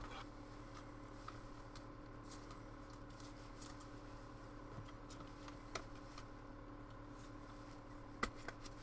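Faint rustling and light clicks of trading cards being handled and slid through the hands, over a steady electrical hum. There is a sharper click near the end.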